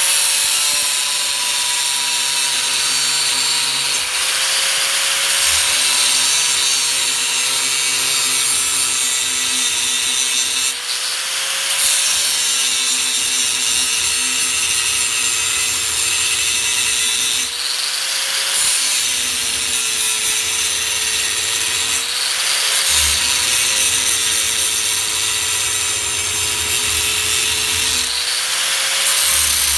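DeWalt angle grinder with an abrasive cut-off wheel cutting steel sheet: a steady motor whine with a loud grinding hiss. About five times the pitch rises briefly as the wheel eases off the metal, then drops back as it bites in again.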